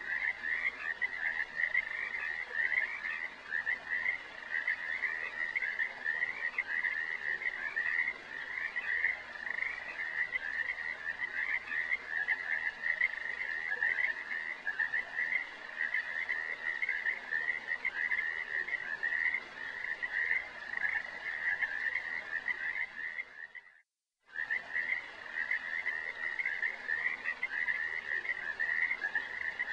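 A continuous chorus of rapid, pulsing trills held at one high pitch, cutting out completely for about half a second some 24 seconds in and then carrying on.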